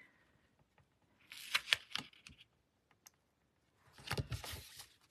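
Cardstock and paper being handled on a table: two short spells of rustling and light clicks, about a second in and again near the end, with quiet between.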